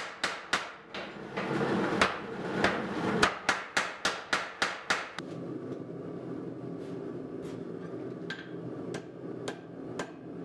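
Mechanical power hammer striking hot steel in quick, even blows, about three to four a second, as a forged blade's tang is drawn out. The blows stop about five seconds in, leaving a steady low hum. Near the end a hand hammer strikes the hot steel on an anvil a few times, about once every half second.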